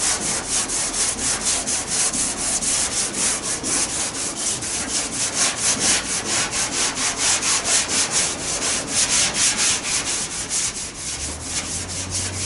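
Hand sanding block with sandpaper scraping back and forth over primer surfacer on a 1978 Lincoln Mark V's trunk lid, in quick, even strokes, several a second. This is block-sanding the primer to bring out and level runs and steps. A low steady hum comes in near the end.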